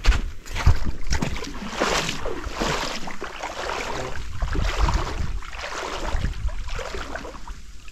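Water splashing and sloshing in irregular surges, with wind rumbling on the microphone.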